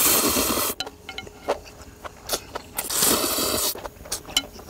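Someone eating cold noodle soup with enoki mushrooms: two long slurps of noodles, one at the start and another about three seconds in, with small clicking mouth and chewing sounds between.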